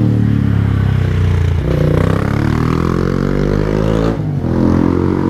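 A road vehicle's engine easing off, then accelerating with steadily rising pitch. About four seconds in it drops at a gear change and pulls again.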